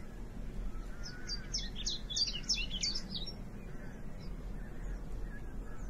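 A small songbird singing a quick phrase of about a dozen short, high notes, each sliding down in pitch, starting about a second in and lasting a couple of seconds, with a few fainter high notes later, over a low steady background hum.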